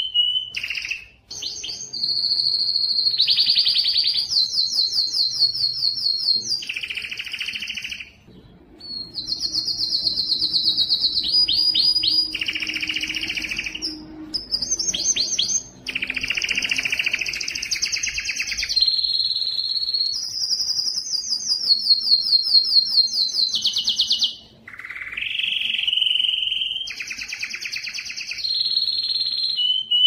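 Male orange canary singing a long song of rapid trills, one phrase of fast repeated notes after another, switching between higher and lower pitches. It breaks off briefly about a second in, at around eight seconds and at around twenty-four seconds.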